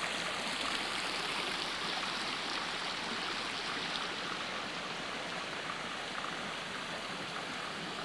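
Small mountain creek tumbling over a little cascade: a steady rush of running water.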